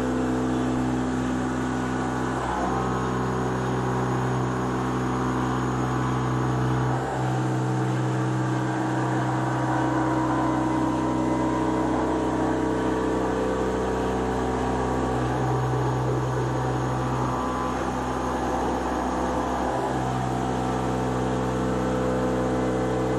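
Haas VF-3YT vertical machining centre running as it mills an expanded-polystyrene (thermacol) die: a steady hum and whine made of several tones from the spindle and axis drives. The tones shift every few seconds as the tool changes its moves.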